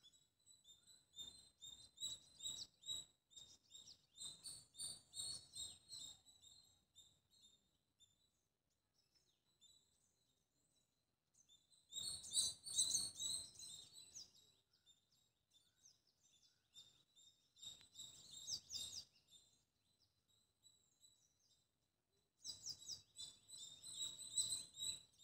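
Small bird chirping faintly in quick runs of high, rapid notes. There are four separate bouts a few seconds apart, with near silence between them.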